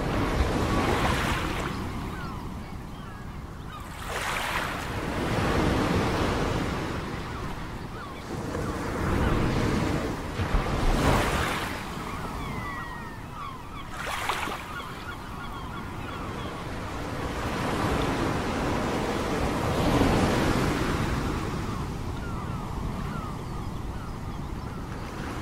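Ocean waves washing in, the surf swelling and falling away every few seconds.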